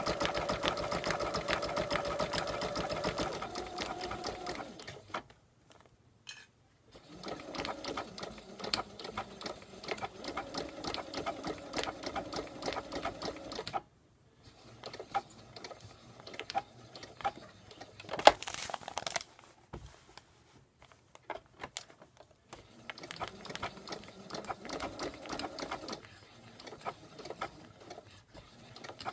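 Domestic sewing machine stitching felt appliqué letters onto thin fabric, running in stretches of rapid stitches separated by short pauses. The later stretches are shorter and more broken up, and there is one sharp click a little past halfway.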